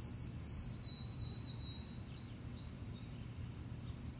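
Outdoor ambience: a steady low background rumble with a few faint bird chirps, and a thin high steady tone that fades out about two seconds in.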